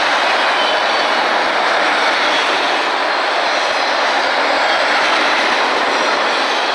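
Autorack freight cars rolling past: a steady, loud rumble and rattle of steel wheels on rail, with brief faint wheel squeals.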